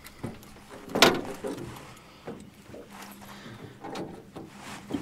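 Knocks and thumps on a jon boat's deck around a netted blue catfish: one loud, sharp thump about a second in, then several lighter knocks.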